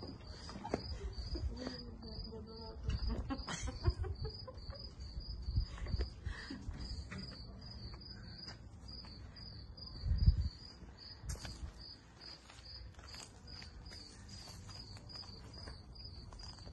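A cricket chirping steadily, about three chirps a second, over a low rumble, with a thump about ten seconds in.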